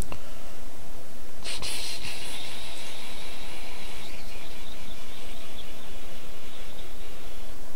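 Steady hiss of a noisy recording microphone, with a short click at the start. A brighter, higher hiss joins it about a second and a half in and stops just before the end.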